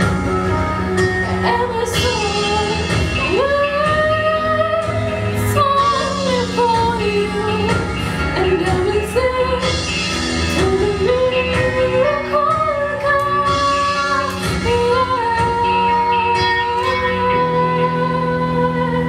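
A woman singing a slow melody with long held notes that slide between pitches, over a steady instrumental backing.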